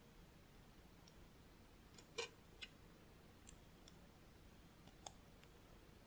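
Faint clicks of small plastic LEGO pieces being handled and pressed together, about half a dozen scattered clicks with the loudest, a short cluster, about two seconds in.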